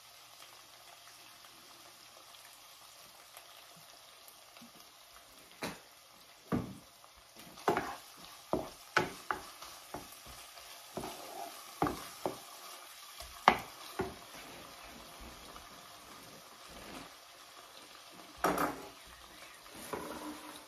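Shaved beef, onions and green peppers frying in a skillet with a soft, steady sizzle. A wooden spatula knocks and scrapes against the pan in a quick run of strokes through the middle, with a couple more knocks near the end.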